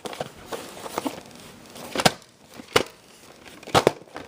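Plastic VHS cassette and case being handled: a soft rustle with a few sharp clicks and knocks, one about two seconds in, one near three seconds, and a quick pair near the end.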